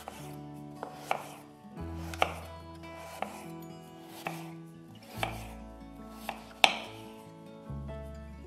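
Kitchen knife slicing through a peeled raw potato on a wooden cutting board. Each cut ends in a sharp tap of the blade on the board, roughly once a second and unevenly spaced, with the loudest tap near the end, over soft background music.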